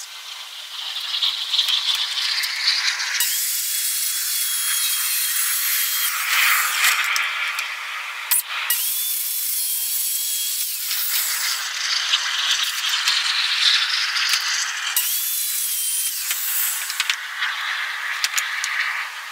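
Corded circular saw cutting a wooden board, its motor whine starting up about three times as separate cuts are made. A light scratching is heard in the first few seconds, before the saw starts.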